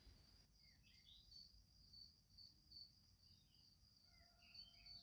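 Near silence, with a faint, evenly pulsing high insect trill (a cricket) and a few faint chirps.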